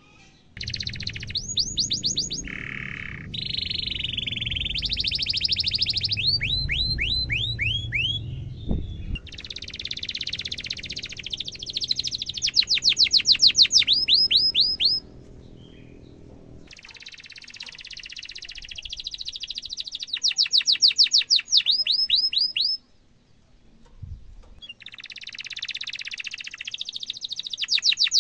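Domestic canary singing long rolling song phrases made of rapid, repeated chirping trills. It sings in three long bouts separated by short pauses.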